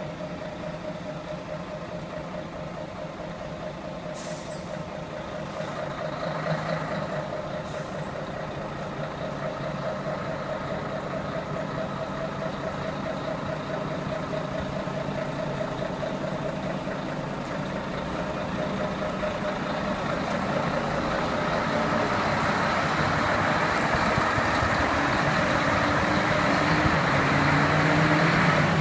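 Diesel engines of concrete mixer trucks running and growing steadily louder as the trucks approach, with two short air-brake hisses in the first third.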